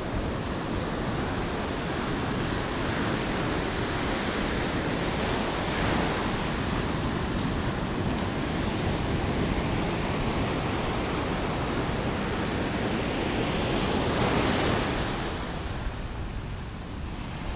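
Ocean surf washing steadily onto the beach, with some wind on the microphone. The wash swells about six seconds in and more strongly around fourteen seconds, then eases off near the end.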